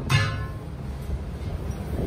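Steady low hum of a belt-driven lathe, with a metallic clank and ring just after the start from a steel truck wheel centre disc wobbling on its edge on the floor.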